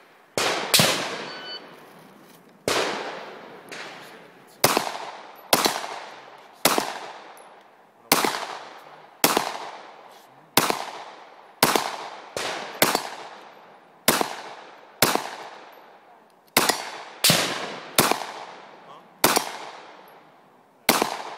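Handgun shots fired in a steady string at steel plate targets: about twenty shots, roughly a second apart with some in quicker pairs, each trailing off in an echo.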